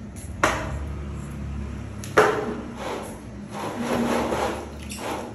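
Blue plastic bath basin knocked twice, the second knock the louder, with the water in it sloshing and swishing after the knocks.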